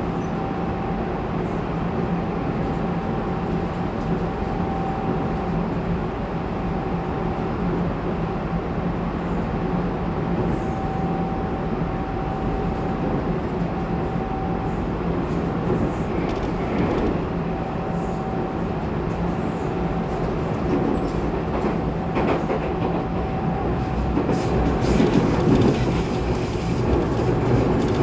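Tobu 20400 series electric train running between stations, heard from inside a motor car: wheels on the rails and the running gear make a steady noise, which grows louder near the end.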